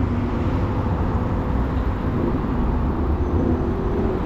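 Steady rush of wind and road noise while riding through city traffic, with the hum of surrounding vehicles.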